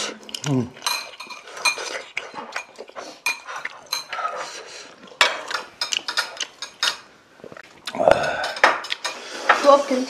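Eating utensils clicking and clinking against bowls and plates during a meal, many light, irregular knocks.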